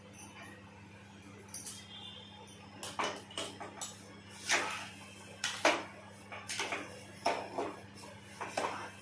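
Steel spoon scraping and knocking against a metal pot while stirring thick wood apple pulp and sugar, in irregular strokes about once a second, over a faint steady low hum.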